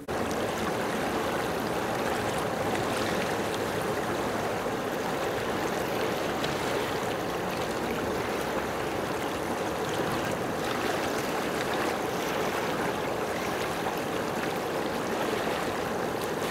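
Steady rush of moving water, an even wash of sound without a break.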